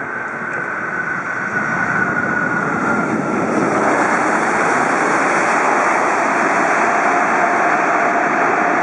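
Airbus A380-800 jet engine noise on the runway rollout just after touchdown, growing louder over the first few seconds as the airliner comes past and then holding steady. A faint engine whine drops in pitch as it goes by.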